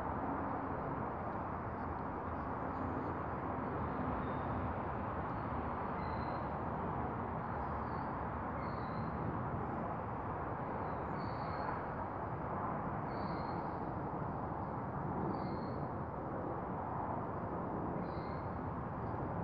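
Steady outdoor background rumble, with a small bird faintly repeating a short high chirp every second or two.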